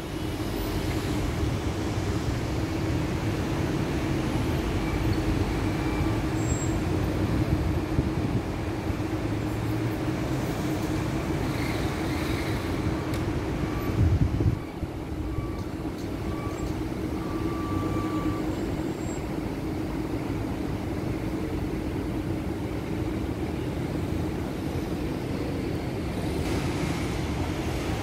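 Steady outdoor city ambience: a low rumble with a constant hum running under it, and a brief louder low thump about halfway through.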